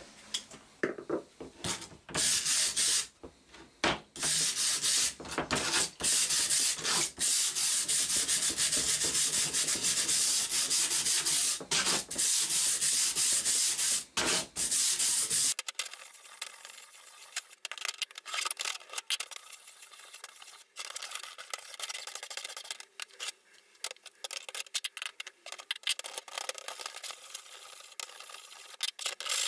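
Wire brush scrubbing rusty steel files in quick back-and-forth strokes, scraping rust off. The scrubbing turns quieter about halfway through, with quick, light strokes.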